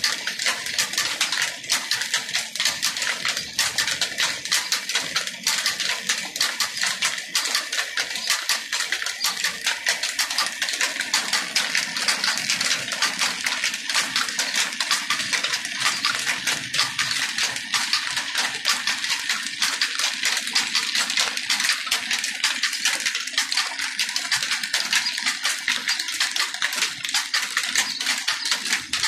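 Belt-driven flour mill (chakki) grinding grain, with its flat belt and pulleys running: a steady, fast metallic clatter of rapid sharp ticks.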